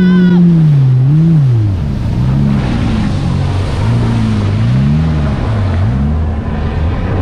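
Jet ski engine running hard. Its pitch holds steady, drops about a second in, then rises and falls over and over as the throttle and revs vary. A faint high steady whine stops about half a second in.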